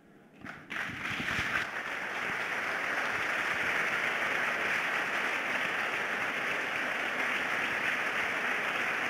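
An audience applauding: a few separate claps about a second in, building into steady applause.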